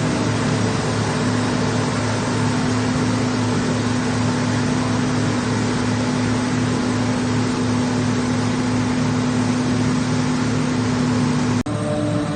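Silage harvesting machinery running steadily: a loud, even engine drone with a constant hum. It cuts off suddenly near the end and a different steady machine drone with several held tones takes over.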